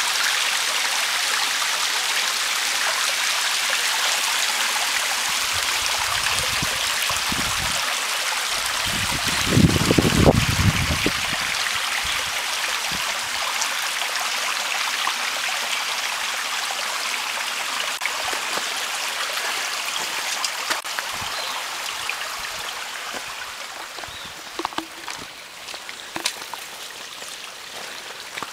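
Small mountain stream running and splashing over rocks, a steady hiss of water that fades toward the end. A brief low rumble, the loudest moment, comes about ten seconds in, and a few light knocks sound near the end.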